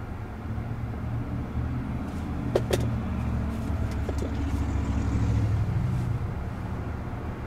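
Road traffic rumbling past, heard from inside the cabin of a car stopped at a red light, with two sharp clicks about two and a half seconds in and two fainter ones a little later.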